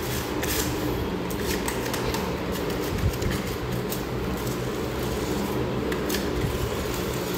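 Short repeated scrapes of a hand tool pressing epoxy grout into floor-tile joints, over a steady mechanical hum like a fan.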